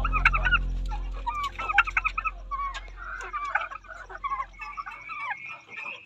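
Young chickens calling, a quick run of short, high chirping calls and clucks.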